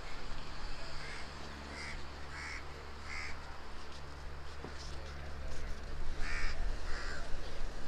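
Crows cawing: a string of short caws about a second in, then a pause, then two or three more near the end, over a steady low hum.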